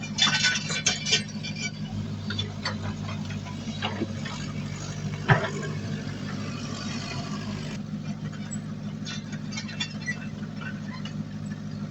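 Diesel engine of heavy earthmoving equipment running steadily, with metallic clanks and rattles over it and one sharp bang about five seconds in.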